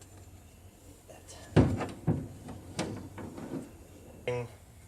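Aluminum angle deck supports knocking and clattering against the boat as they are handled and set into place. There is one sharp knock about a second and a half in, then several lighter knocks.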